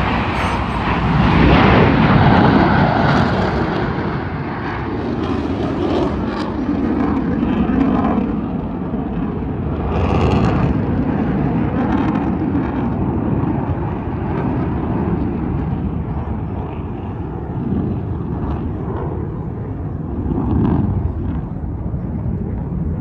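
Jet engines of Blue Angels F/A-18 Super Hornets flying over: a loud, continuous jet rumble that peaks about two seconds in, then settles to a steadier, somewhat fainter rumble that swells now and then as the formation moves across the sky.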